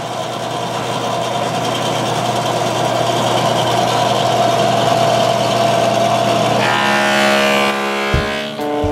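Table saw running and cutting through a rough wood slab as it is fed along the blade, a steady mechanical whine that grows slightly louder. Guitar music comes in about seven seconds in.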